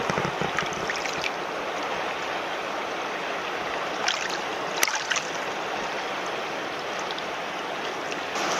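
Shallow mountain stream running over a rocky bed, a steady rush of water close to the microphone, with a few brief clicks about four to five seconds in.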